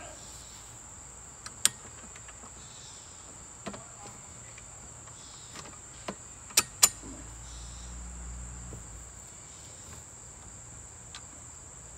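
A few sharp clicks of bolt hardware being fitted into a steel cart frame. The loudest two come in quick succession about six and a half seconds in, over a steady high trill of insects.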